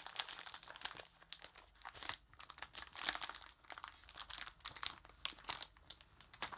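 A crinkly plastic sweets bag being pulled open and handled, with rapid, irregular crackling and rustling throughout.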